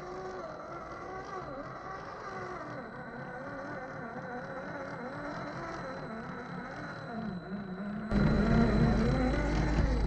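Electric motor and gear drive of a 1/10-scale RC rock crawler whining as it crawls over rocks, its pitch wavering up and down with the throttle, pitched low by half-speed playback. About eight seconds in it turns much louder, with a low rumble added.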